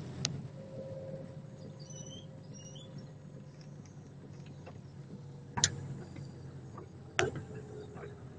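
Steady low engine and road hum heard from inside a moving car's cabin, with a few sharp clicks: one just after the start, then two about a second and a half apart near the end. A few faint high chirps come about two seconds in.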